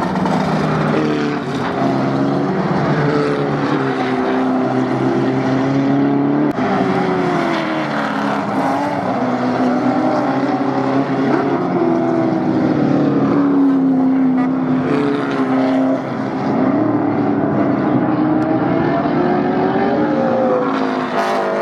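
Improved Production race car engines running hard on track, their pitch climbing through the revs and dropping back at gear changes and lifts, several times over.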